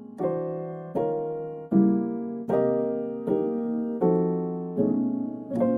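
Background music: soft electric piano chords, a new chord struck about every three-quarters of a second and fading before the next.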